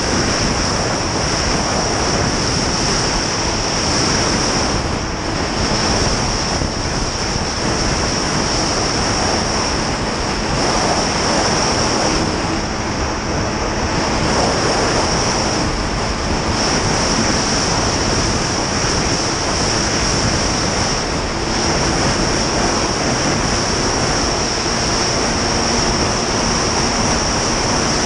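Snowmobile running at steady cruising speed over packed snow, its engine and track drone heard under heavy wind rush on the microphone, with a steady high whine above.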